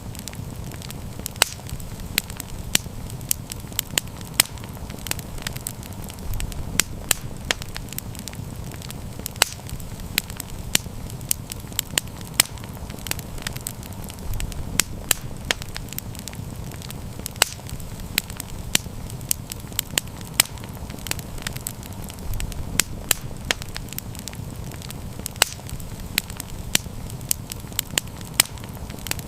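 Wood campfire burning, with frequent irregular sharp crackles and pops over a steady low rumble of flame.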